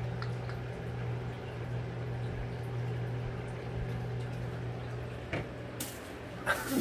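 A cat's small ball toy is batted across a wooden floor with a few faint taps, then near the end lands in a plastic-lined wastebasket with a brief rustle and clatter of the plastic bag. A steady low appliance hum runs underneath.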